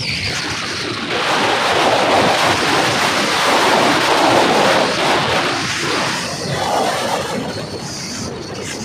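Loud wind noise buffeting a phone's microphone held out from a moving motorcycle, a steady rush of air with no clear engine note above it.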